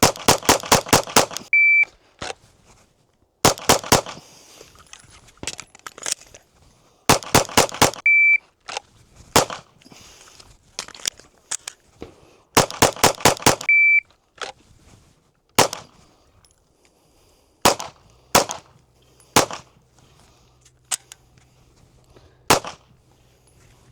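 Four rapid strings of 9mm Glock pistol fire, each several shots in quick succession, with a short electronic shot-timer beep after three of them. In the second half, single shots ring out a few seconds apart.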